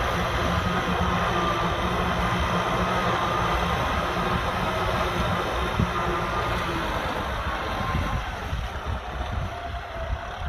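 Kubota M6040SU tractor's diesel engine running steadily as it pulls a plow through a muddy field. The sound fades and turns uneven about eight seconds in.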